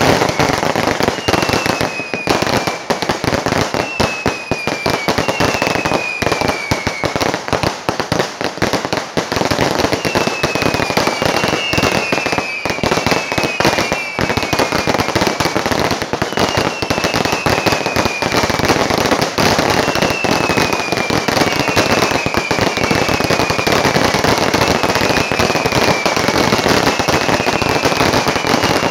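Fireworks display: a dense, unbroken barrage of crackling bangs and pops, with short falling whistles recurring every second or two.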